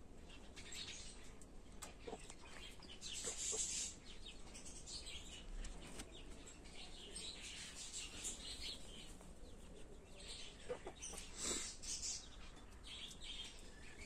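Domestic chickens, hens and a rooster, clucking quietly and off and on, mixed with short high chirps, with busier moments about three seconds in and about eleven seconds in.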